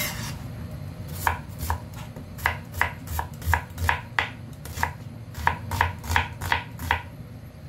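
Chef's knife slicing an onion on a plastic cutting board: a series of sharp knocks as the blade hits the board, about two a second and a little uneven.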